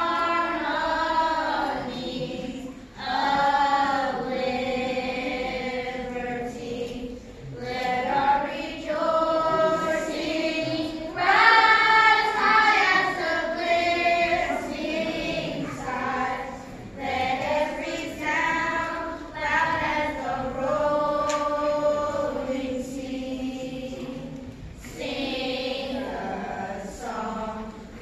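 Children's gospel choir singing together in sustained phrases, with brief pauses between phrases.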